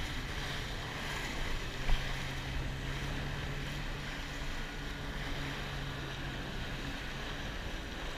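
Jet ski running steadily under way, its engine drone mixed with the rush and splash of water from the wake and wind on the microphone. A single sharp thump about two seconds in.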